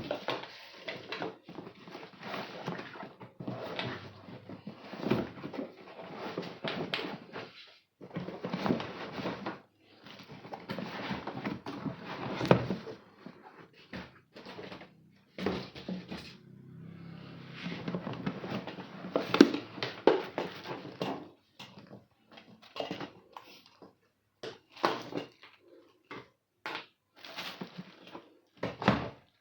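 Handling and unpacking noises: irregular rustling, scraping and plastic knocks in bursts, with brief pauses between them.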